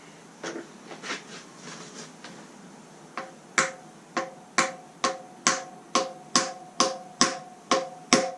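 Hammer tapping a greased wheel bearing into a dirt bike's rear wheel hub: a few light taps, then from about three seconds in firm strikes, about two a second, each with a short metallic ring. The ringing is the bearing being driven home; the tone changes and sounds solid once it is seated.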